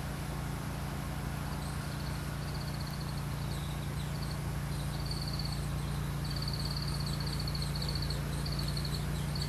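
A high-pitched insect trill, coming in repeated phrases of a second or two, over a steady low hum.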